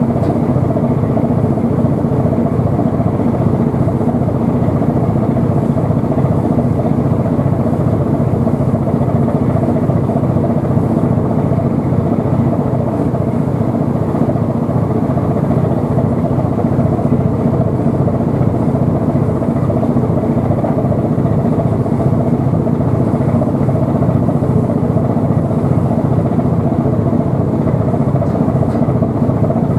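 Steady, unchanging low engine drone with a faint hum in it.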